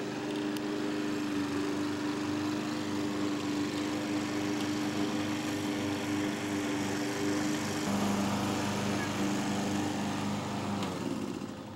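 Battery-powered toy ride-on Jeep driving on grass: its electric drive motors and gearbox give a steady whine, which drops to a lower pitch about eight seconds in and fades shortly before the end.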